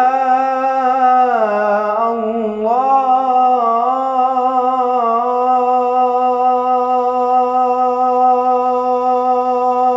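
Solo unaccompanied male voice singing an Islamic ibtihal, holding out the vowel of 'ya' in one long melisma: the pitch dips and turns in ornaments over the first five seconds, then settles on one steady held note for the rest.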